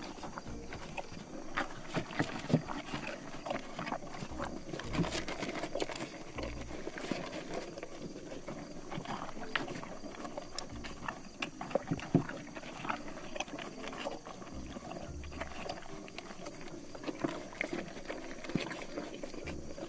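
Horses grazing and eating from a hand: an irregular run of short crunching clicks and rustles from grass being torn and chewed.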